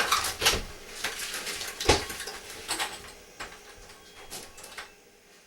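A series of knocks and clicks, the loudest about two seconds in, growing fainter toward the end.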